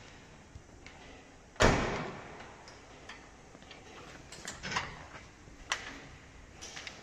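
A single loud bang about one and a half seconds in, then a few lighter clicks and knocks.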